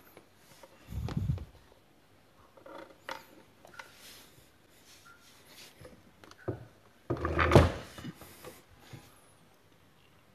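Scattered knocks and clunks of things being handled and moved about. Two louder thuds stand out: one about a second in, and the loudest at about seven and a half seconds.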